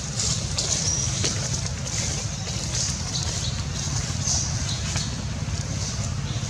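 Outdoor ambience: a steady low rumble, with faint short high-pitched chirps now and then.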